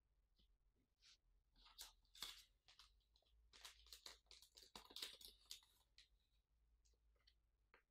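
Faint rustling, crinkling and light ticks of hands handling a tempered glass screen protector and peeling off its paper guide stickers, in a scattered run of short scrapes between about one and six seconds in.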